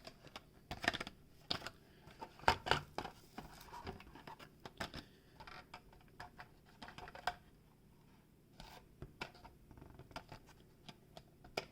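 Carded die-cast toy cars in plastic blister packs being handled and set down: irregular clicks, taps and light scraping of card and plastic, with a quieter stretch about eight seconds in.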